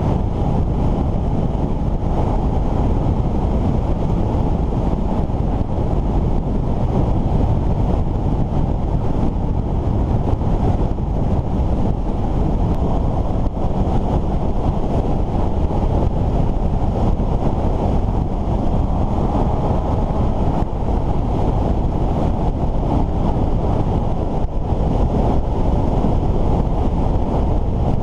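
Steady, loud wind rushing over the microphone of a moving Suzuki GSX-S750, with the motorcycle's inline-four engine running beneath it.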